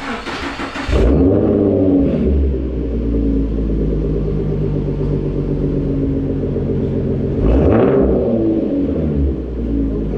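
2014 Ford Mustang Fastback engine and exhaust starting up: a second of cranking, then the engine catches with a flare in revs and settles to a steady idle. A brief blip of the throttle rises and falls about three-quarters of the way through.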